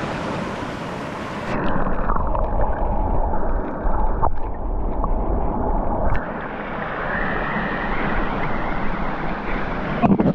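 Creek water running over a rocky pool. About a second and a half in it turns muffled and gurgling as the microphone goes under the water, and it stays dull when it comes up about six seconds in.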